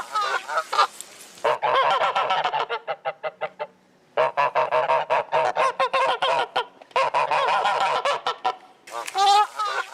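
Geese honking: many overlapping calls come in three dense stretches, with a short silent break about four seconds in and a few single honks at the start and near the end.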